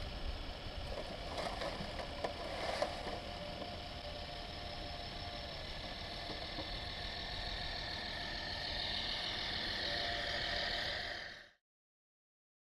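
Radio-controlled model dump truck raising its tipper bed: a steady mechanical whine that grows a little louder toward the end, with a few clicks about two seconds in. The sound cuts off suddenly near the end.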